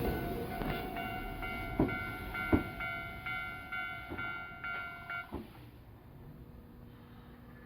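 Nankai electric train running over a level crossing and moving away, its wheels knocking over rail joints several times. The crossing's warning bell rings in a steady repeating pulse and stops about five seconds in, as the train clears the crossing.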